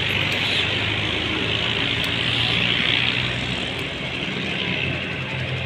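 Steady mechanical drone, as of an engine or motor running, with a continuous hiss and a low hum, and a couple of faint clicks.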